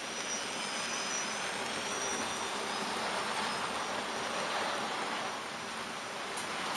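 HO-scale model train rolling along the track: a steady rushing of wheels on rail that swells a little as it passes.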